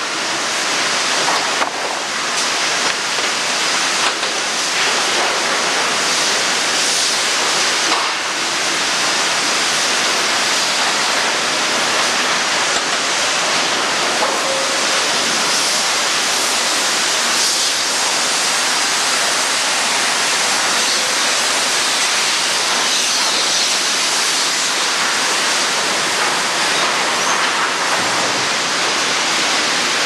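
Steady, even din of sawmill machinery: a dense hiss with no distinct saw cuts or knocks, heard through a degraded VHS camcorder recording.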